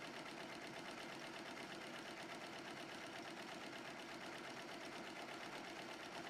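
Commercial multi-needle embroidery machine running, stitching a design onto a cap: a steady, rapid mechanical clatter of the needle.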